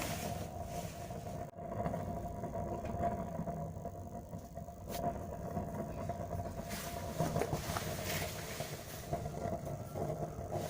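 Waste-oil furnace burning steadily with a low rumble and a faint held tone. It is warming up just after lighting and has not yet reached its working mode.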